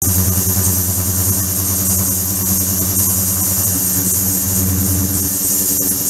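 Ultrasonic cleaning tank running: a steady low hum with a few overtones under a bright high hiss, the water in the bath agitated by the transducers.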